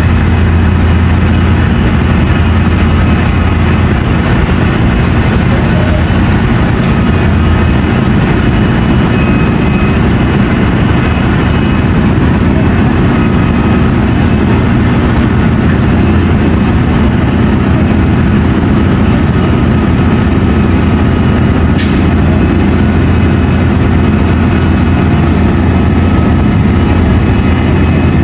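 Heavy diesel engines of an asphalt milling machine at work, with the truck taking its millings alongside, running in a loud, steady low rumble. A single sharp click comes about three-quarters of the way through.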